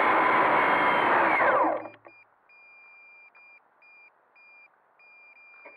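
Quadcopter's electric motors and propellers running steadily, then spinning down with a falling whine and stopping about a second and a half in. A faint high beep then sounds on and off.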